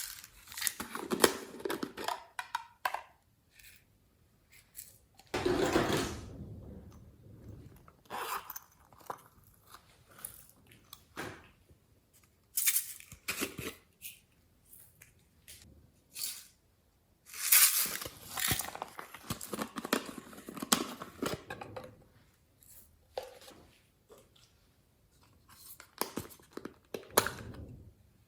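Slime being squeezed, stretched and pressed by hand: irregular bursts of sticky crackling and squishing, some short and sharp, some drawn out over a second or two, with quiet gaps between.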